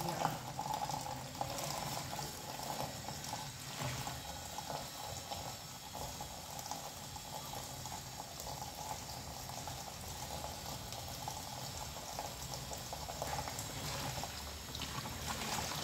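Kitchen tap running in a thin, steady stream into a plastic basin in the sink, splashing evenly. A few light knocks near the end.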